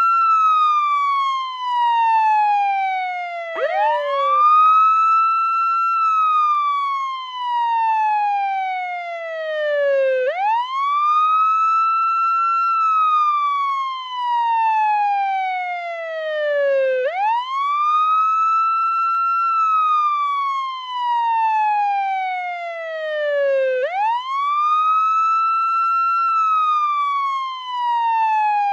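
Portuguese ambulance wail siren. The tone sweeps quickly up, holds briefly at the top, then slides slowly down, in a cycle that repeats about every six and a half seconds.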